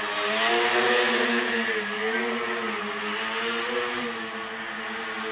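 Radio-controlled tricopter's three electric motors and propellers buzzing in flight, with a thin high motor whine above; the pitch wavers up and down as the throttle is worked, swelling a little about a second in.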